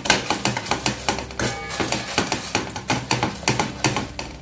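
Metal hand masher pounding thick pav bhaji in an aluminium kadai: a rapid, uneven run of knocks against the pan bottom as the vegetables are mashed together into a smooth gravy.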